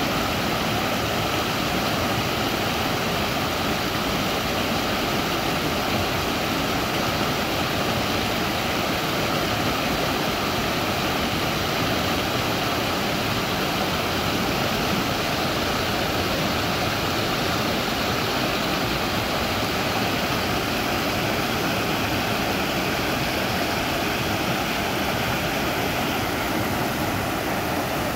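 Small stream cascading over rock ledges, its water rushing and splashing in a steady, unbroken noise.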